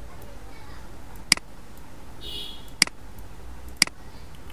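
Three sharp, short computer mouse clicks at uneven intervals over a low steady background hum.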